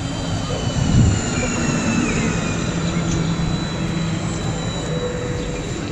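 Electric multiple-unit regional train (Alstom Coradia Continental, DB class 1440) pulling in and braking to a stop at a platform. Its traction motors whine in several high tones that slowly fall in pitch over a low running rumble, which swells briefly about a second in.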